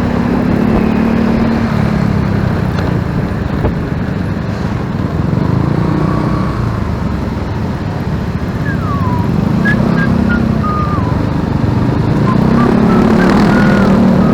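Motorcycle engine running while riding in traffic, with road and wind noise; its pitch swells and drops with the throttle and climbs near the end. A few short high squeaks sound in the second half.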